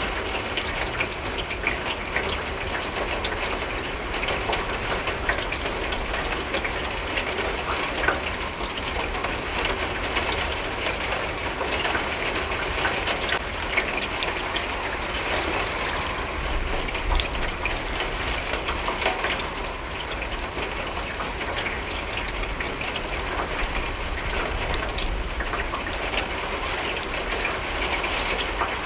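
Steady rain pattering on a window, a dense hiss full of small drop ticks, with a constant low rumble underneath.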